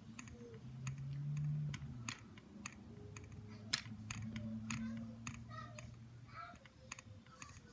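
Scattered, irregular clicks of a computer keyboard and mouse being worked, over a faint low hum.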